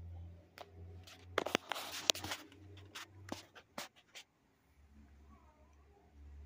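A kitten's paws and claws scratching and tapping on a plastic ring binder: a run of sharp clicks and scrapes, thickest about two seconds in, dying away before four seconds.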